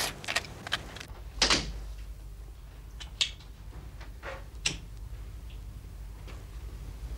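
An office door being opened and shut as someone comes in: a few separate knocks and clicks, the loudest about a second and a half in, over a low steady room hum.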